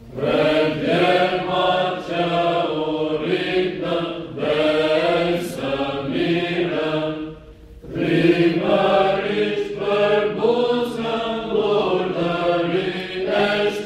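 Mixed choir of men and women singing Byzantine chant a cappella, with a low note held steady beneath the melody. The singing breaks off briefly just past halfway, then resumes.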